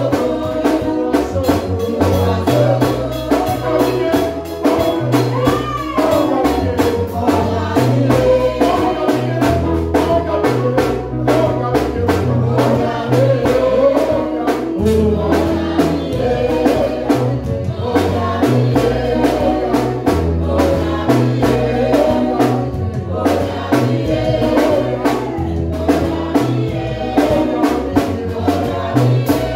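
Gospel praise music: singing over a drum kit and a bass line, with a steady beat.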